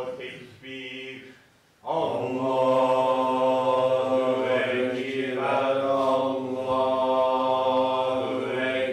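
A solo male voice chanting a Quran recitation in long, wavering held notes. A phrase fades out near the start, and after a brief pause a new long phrase begins about two seconds in.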